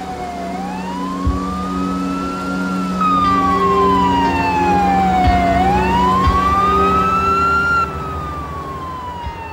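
Ambulance siren wailing, its pitch slowly rising and falling in a cycle of about five seconds.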